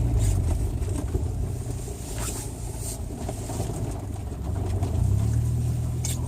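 A car running slowly with a steady low engine and road rumble; it eases off in the middle and picks up again about five seconds in.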